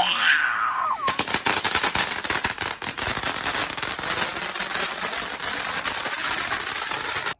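Fireworks going off in a fast, dense crackle of sharp cracks, starting about a second in and cutting off suddenly.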